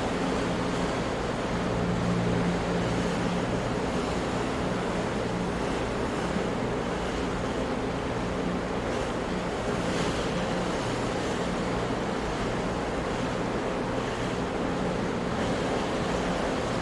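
Ocean surf: a continuous wash of breaking waves that swells slightly a couple of times, with a faint low steady hum underneath.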